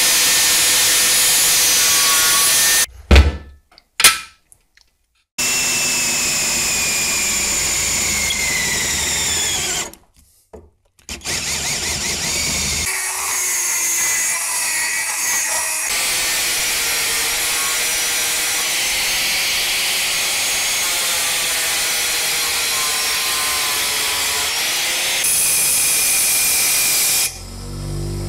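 Power tools cutting and grinding a flat steel bar: first an angle grinder cutting through it, then a rotary tool grinding it. The sound comes in separate stretches of steady, high-pitched whining and cutting noise, broken by two short silences.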